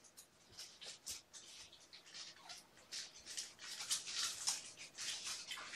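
Cats playing on a carpet: faint, irregular scratching and rustling from paws, claws and toys, busier in the second half.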